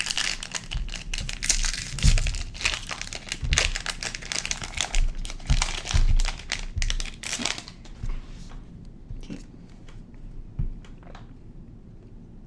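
A trading-card booster pack's foil wrapper being crinkled and torn open, with dense crackling for about seven and a half seconds, then only a few scattered rustles.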